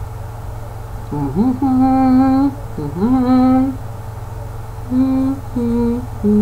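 A man humming a few notes to himself: two long notes that each slide up and then hold, then shorter notes stepping downward. A steady low electrical hum lies underneath.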